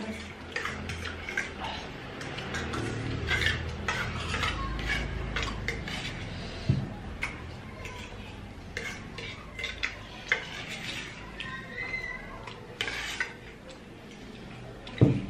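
Metal spoons clinking and scraping against ceramic plates as people eat, in scattered short sharp clicks.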